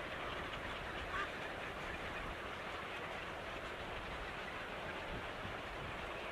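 A bird calling briefly about a second in, over a steady hiss.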